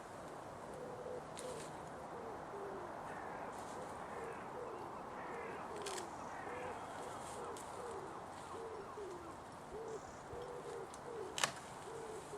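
A bird calling with a repeated low hooting or cooing note, about two a second, with fainter higher chirps from other birds and a single sharp click near the end.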